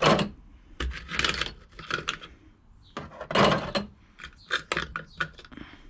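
Small metal brake caliper hardware (bolts, pins and clips) clinking and rattling as it is handled in a metal parts tray and a plastic tub of white spirits. The sound comes in short, irregular bursts.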